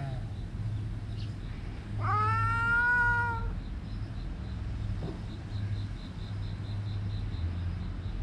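Tabby cat meowing once, a single long meow about two seconds in that rises at the start and then holds its pitch for over a second.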